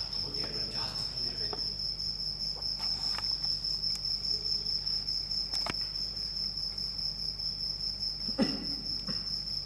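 Crickets chirping in a steady high-pitched trill, with a few faint taps.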